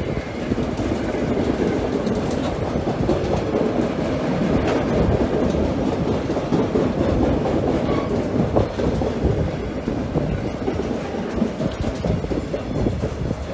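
Loaded double-deck car-carrier freight wagons rolling past: a steady rumble of wheels on the track with light clicks over the rail joints.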